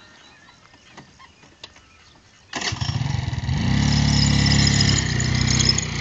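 A small motor scooter engine starts suddenly about two and a half seconds in, after a few faint clicks. It revs up for a second or so, then settles to a steadier, lower running level near the end.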